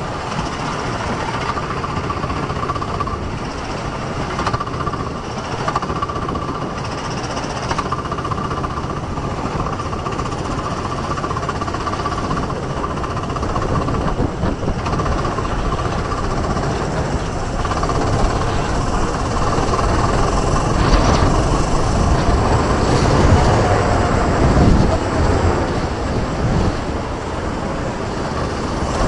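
Onboard sound of a Sodi rental go-kart's engine running under way, a steady rumble with a thin whine in it, growing a little louder in the second half as the kart gets up to speed on track.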